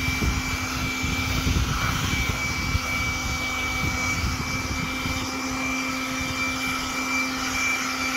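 A power tool running steadily, a constant high whine over a low rumble.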